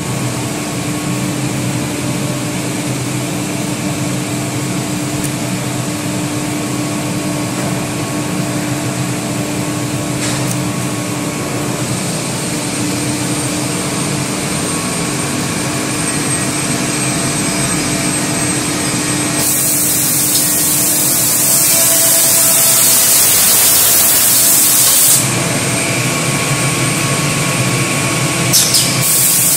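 Automatic edge banding machine running with a steady mechanical hum. Partway through, a loud hiss lies over it for about six seconds, and a short burst of the same comes near the end.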